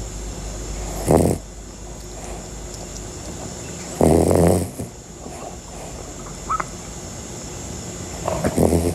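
A sleeping dog snoring: three loud snores, about three seconds apart.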